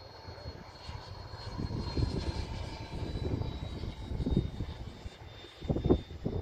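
Electric ducted-fan whine of a Freewing 90 mm F/A-18 model jet flying past overhead: a thin high whine that slowly sinks a little in pitch, over low gusting rumbles that are loudest about six seconds in.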